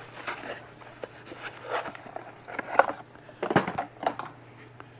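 Packaging being handled and opened: scattered rustles, taps and clicks as a box is worked open, with a faint steady hum underneath.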